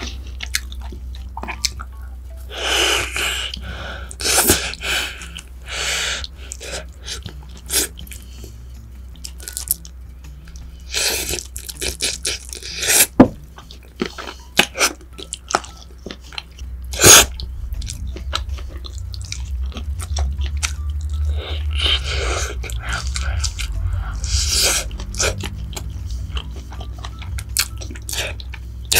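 Close-miked chewing of crunchy food, with spells of crunching and two sharp, loud snaps about 13 and 17 seconds in.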